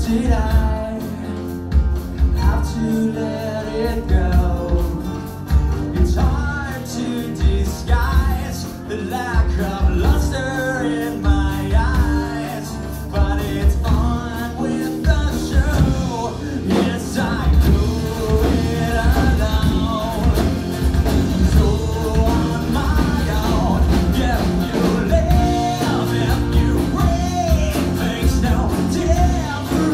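A rock band playing live: acoustic guitars over a drum kit and hand drums keeping a steady beat, with a man singing lead.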